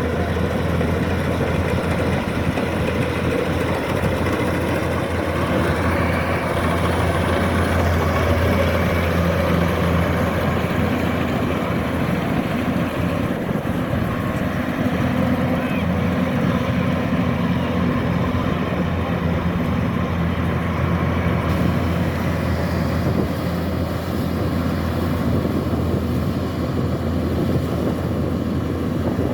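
Kubota DC-105X combine harvester running steadily, a dense continuous mechanical drone of its engine and harvesting machinery.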